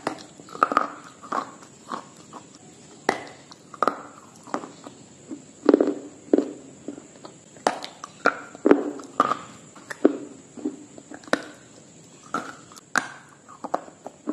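Close-miked crunchy biting and chewing of a hard, brittle food block: sharp irregular cracks, about one every half second to second, each followed by a short crunching chew, over a faint steady high hiss.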